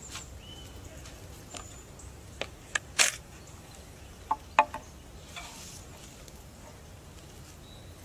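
Knife cutting a bunch of basil on a wooden board: two groups of three sharp knocks, the loudest about three seconds in and the second group about a second and a half later.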